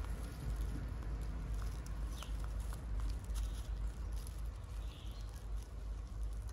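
Baby monkey eating bread: scattered soft clicks of chewing and handling the bread, over a steady low rumble.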